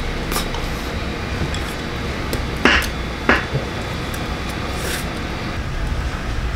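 A steady low hum of restaurant background noise, with two short sharp smacks a little over half a second apart about three seconds in.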